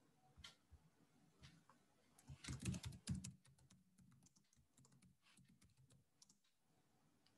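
Faint typing on a computer keyboard: a louder flurry of clicks between about two and a half and three seconds in, then a run of quick, light keystrokes.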